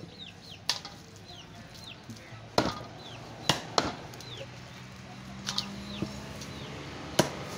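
A heavy cleaver chopping through fish onto a round wooden chopping block, about eight sharp chops at irregular intervals, some louder than others. A bird chirps repeatedly in the background with short falling chirps.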